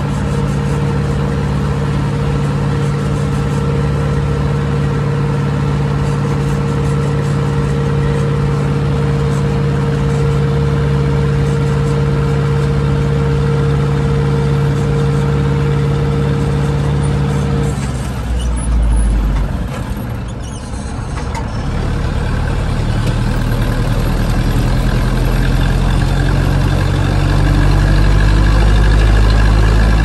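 Zetor 6045's four-cylinder diesel engine, heard from inside the cab, running at a steady speed while the tractor drives on the road. About 18 seconds in the engine note drops away briefly, as with a gear change or slowing down. It then picks up again and rises slowly in pitch as the tractor accelerates.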